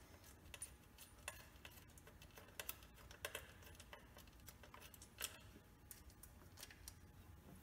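Faint, scattered light clicks and taps of metal bolts being turned out by hand from the air cleaner housing on a Datsun 240Z's SU carburetors.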